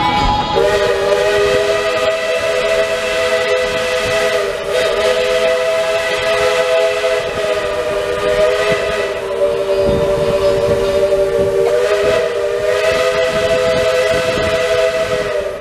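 Steam locomotive's chime whistle blown in one long blast of about fifteen seconds, a chord of several notes that wavers slightly in pitch partway through and cuts off suddenly.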